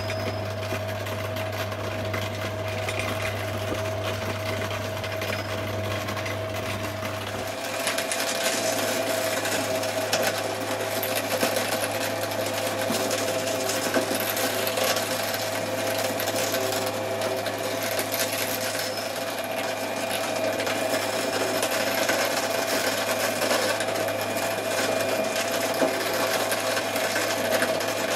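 A twin-shaft shredder running steadily as it chews through soft Kinetic Sand: an even mechanical whirr of its motor and cutter shafts, with a low hum. About seven seconds in, the hum shifts and the sound grows slightly louder.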